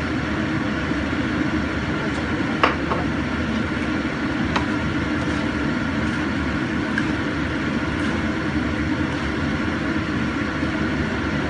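Steady low rumbling noise of a nonstick wok of chopped mushroom and chicken filling cooking on the stove. A sharp clink comes about two and a half seconds in, and a lighter one about two seconds later.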